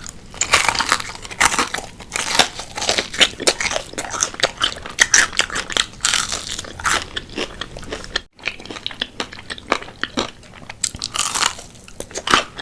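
Close-miked biting and chewing into a crispy fried chicken wing: a fast, irregular run of loud crunches, with a split-second break about eight seconds in.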